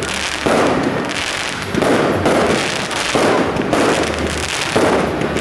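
A big bonfire burning hard: dense, continuous crackling and popping that swells and eases about once or twice a second.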